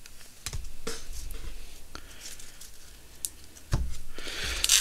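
Yu-Gi-Oh trading cards and booster packs being handled: soft rustling with a few light clicks and taps.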